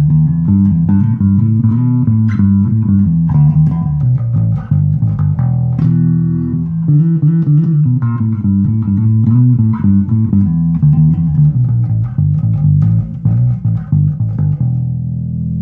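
1998 Rickenbacker 4003 electric bass with roundwound strings, played through an amp with all controls up full: a continuous run of plucked bass notes, ending in one held note that rings on near the end.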